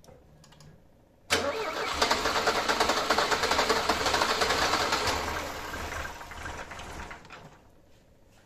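Starter cranking a cold carbureted Mercedes-Benz M102 2.0-litre four-cylinder engine for about six seconds, starting about a second in and fading away near the end, without the engine catching: with no gas pedal pressed, the mixture is too lean for it to start.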